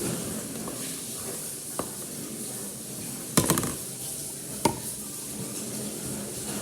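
Slime-making containers and utensils being handled on a counter: a faint knock about two seconds in, a quick rattle of clicks about three and a half seconds in, and a single sharp knock just under five seconds in.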